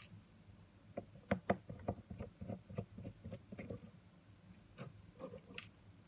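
Light clicks and ticks of a precision screwdriver and small screws being worked out of a plastic camera zoom lens mount and handled. There is one sharp click at the start, then a quick run of light ticks for about three seconds and a few more near the end.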